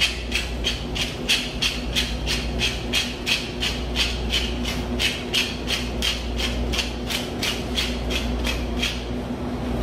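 Hand-twisted pepper mill grinding pepper: an even rhythm of scratchy clicks, about three a second, that stops about nine seconds in.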